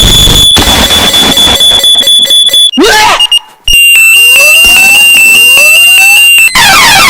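Loud alarm clock sound effects, one after another. First comes a high steady tone with rapid pulses, then a short falling glide and a brief gap. Next is a high tone with a rising chirp about once a second, and near the end it switches to a fast, repeating up-and-down warble.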